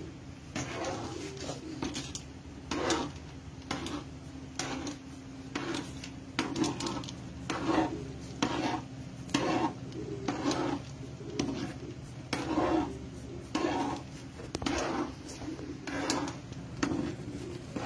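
Metal spoon stirring coconut milk in a metal pan, scraping along the pan in rhythmic strokes a little more than once a second, over a steady low hum.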